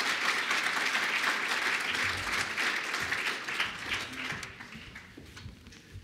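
Audience applauding, many hands clapping together, dying away after about four seconds.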